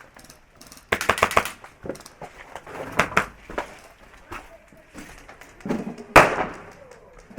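Airsoft guns firing: a quick burst of rapid snapping shots about a second in, scattered single shots after it, and one loud sharp crack a little after six seconds.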